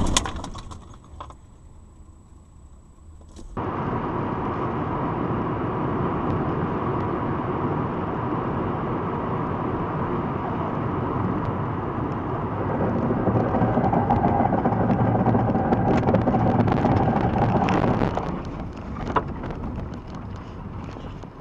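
Road and engine noise inside a moving car, heard through a dashcam: a steady rumble that starts suddenly a few seconds in and grows louder. It falls away about two thirds in as the car runs off the road and comes to rest tilted, with a single knock shortly after. The first few seconds are quieter, with a few clicks.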